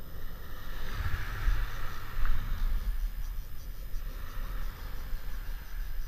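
Wind buffeting the microphone: an uneven low rumble that swells and drops, with a steady hiss above it.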